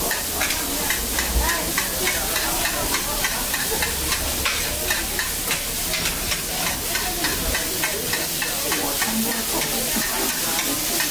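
Stir-fried rice noodles sizzling in a wok, with a metal spatula clattering and scraping against the wok in quick repeated strokes.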